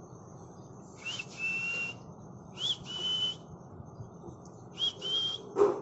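Three high whistling notes, each a quick upward flick and then a short held tone, about a second and a half apart, followed by a sharp knock near the end.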